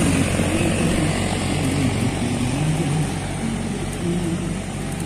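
Diesel tractor hauling a loaded sugarcane trailer, passing close by and slowly fading away, with the trailer rumbling along the road.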